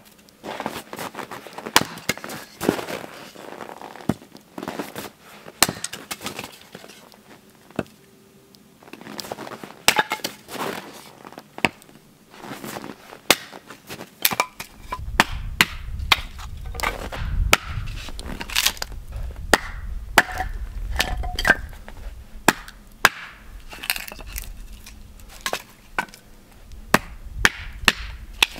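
An axe splitting firewood rounds on a chopping block: repeated sharp chops and cracks of wood splitting, irregularly spaced.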